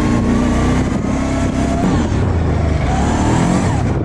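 Kawasaki Prairie 650 ATV's V-twin engine running under throttle on the trail, its pitch rising and falling as the rider works the throttle.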